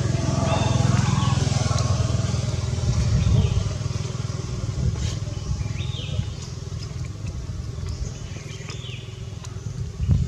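A motor vehicle's engine running close by, loudest in the first few seconds and then fading away, with short high chirping calls now and then.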